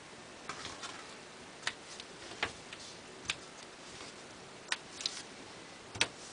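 Scissors snipping off ribbon ends: a handful of short, sharp snips at irregular intervals.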